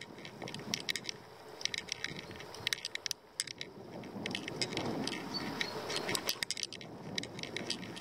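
Bicycle rattling as it rolls over a rough, worn road. Sharp irregular clicks and jingles from loose parts sit over a steady low rumble of the tyres.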